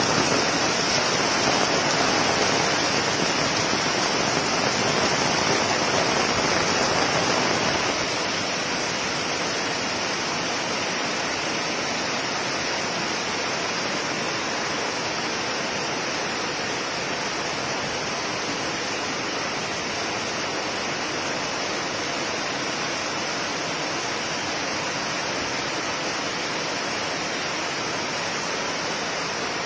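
Heavy rain pouring down on the road and parked cars: a dense, steady hiss that eases a little about eight seconds in.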